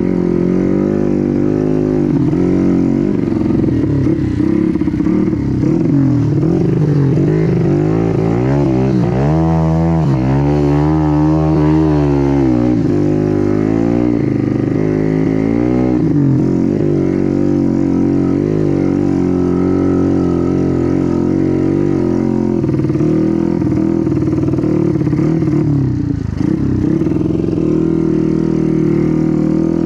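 Honda Win motorcycle fitted with a Yamaha Jupiter engine being ridden off-road, its engine note rising and falling with the throttle. There is a stretch of quick, repeated revving about 8 to 16 seconds in.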